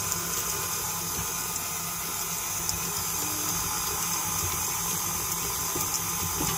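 KitchenAid tilt-head stand mixer running steadily at low speed, its flat beater turning a stiff cookie dough to mix in chocolate chips.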